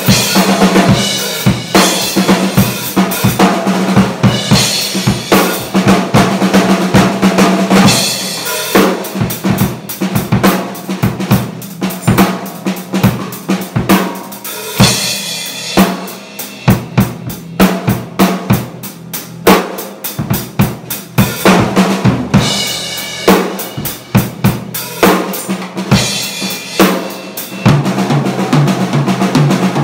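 Acoustic drum kit played freestyle: rapid strokes on snare and bass drum with cymbals.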